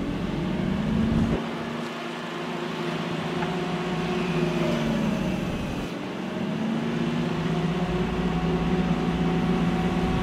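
Forklift engine running, its pitch rising and falling in slow swells as it is revved, over a steady low rumble.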